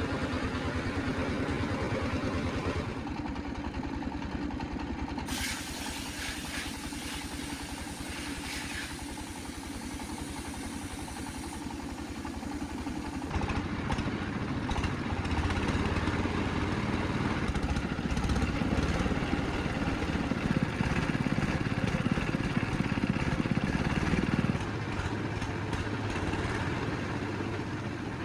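An engine-driven machine running steadily with a fast, even pulse. Its sound changes abruptly about 3 seconds in and again about 13 seconds in.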